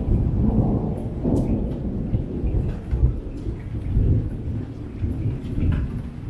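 Heavy rain falling with thunder rumbling low throughout, swelling and easing every second or so.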